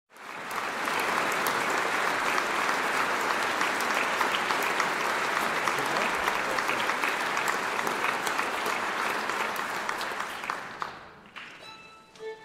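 Theatre audience applauding, a dense clatter of clapping that dies away about eleven seconds in. Near the end come a few short violin notes.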